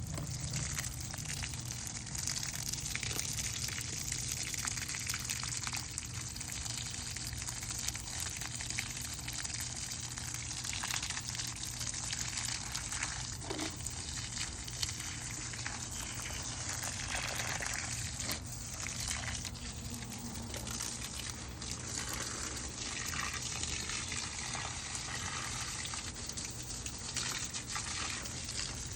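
Water from garden watering spraying and pattering steadily onto plants and soil, a continuous rushing hiss.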